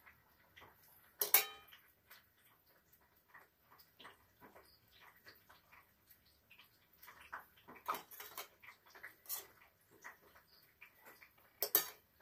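A metal spoon clinking and scraping against a steel bowl and plate while filling is scooped into a pastry cone, with soft handling sounds between. Two sharper, ringing clinks stand out, about a second in and near the end.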